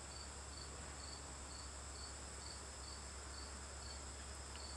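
Crickets chirping faintly: regular high chirps about two and a half times a second over a steady, higher continuous trill.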